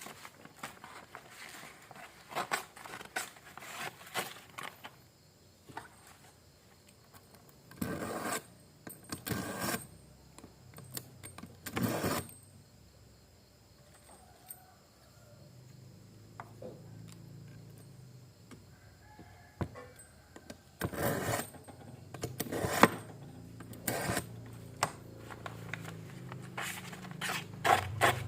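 A steel knife blade drawn again and again through a knife sharpener, giving short, irregular metallic scraping strokes with small clicks and rattles between them.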